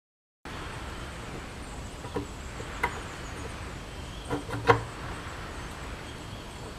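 A few light, sharp clicks and knocks as a steel shaft is worked into the seal on a Tecumseh Peerless transaxle's cast case, over a steady workshop hiss. The loudest knock comes about two-thirds of the way through, and the sound cuts in suddenly about half a second in.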